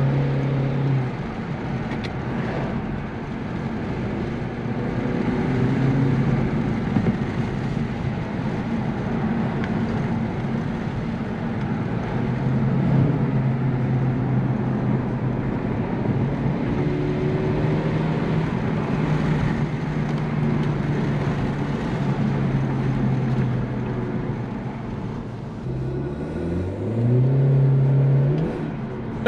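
A 2018 Honda Civic hatchback's 1.5-litre turbocharged four-cylinder heard from inside the cabin under acceleration on the stock intake, its engine note rising, breaking off and coming back several times with road noise under it. Near the end the revs climb once more in a rising pitch.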